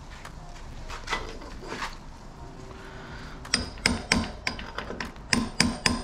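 A steel hammer tapping a bearing press tool used as a drift, knocking the plastic upper headset cup out of a mountain bike's head tube. A few faint handling knocks come first, then from about halfway in a quick run of light, ringing metal-on-metal taps, several a second.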